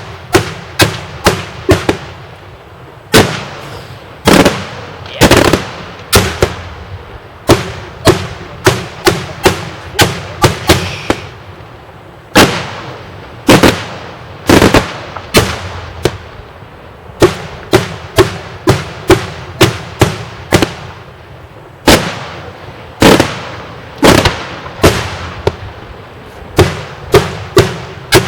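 Daytime fireworks going off in a long run of loud, sharp bangs, from several a second to about one a second, each followed by a short echoing tail.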